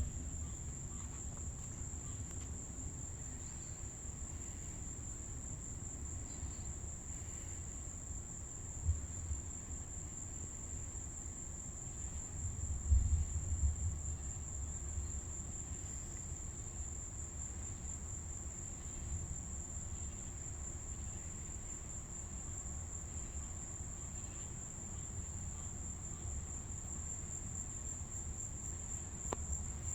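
Steady, unbroken high-pitched chorus of crickets or similar insects. Low rumbles sit underneath, loudest about thirteen seconds in.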